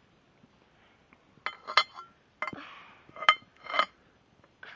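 Hard parts clinking and knocking against each other as they are handled, a handful of sharp clinks about one and a half to four seconds in, some with a short metallic ring.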